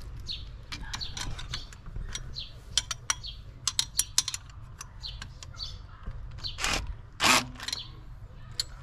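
Metal tools clicking, clinking and scraping on the bolts and fittings of a Subaru engine bay as the blow-off valve is unbolted with a cordless ratchet and socket. Two short bursts of noise come near the end, the second the loudest, and birds chirp in the background.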